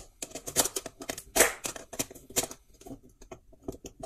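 Handling sounds from wiring a plastic switch board: irregular small clicks and scratchy scrapes as a screwdriver and a wire end are worked into the screw terminals of a switch and a socket.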